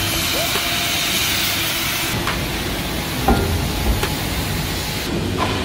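Oxy-fuel cutting torches hissing steadily as they cut through thick steel plate, with a few metallic clanks and a knock a little past halfway.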